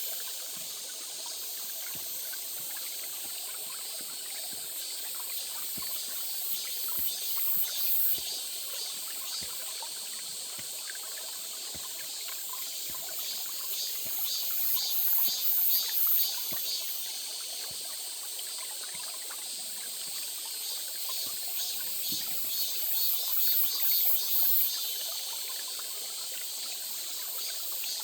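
Small stream trickling and running steadily. A high, fast-pulsing buzz swells twice, about halfway through and again near the end.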